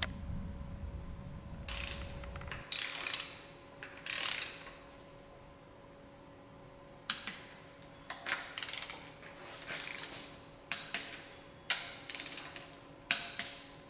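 Ratchet of a click-type torque wrench clicking in short runs as the camshaft bearing-cap bolts on a Mitsubishi 4G63 DOHC cylinder head are tightened in sequence. After a pause of a couple of seconds, the runs come more often toward the end.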